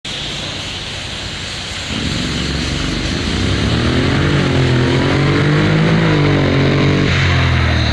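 Honda Integra scooter's parallel-twin engine accelerating hard from a standing start. The engine note climbs in pitch, dips about halfway through as the dual-clutch gearbox shifts up, climbs again, and drops near the end.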